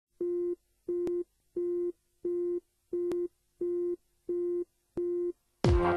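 Electronic beep tone repeating like a telephone busy signal: eight short, even beeps at a steady pitch. Near the end, electronic music with deep, falling bass sweeps comes in.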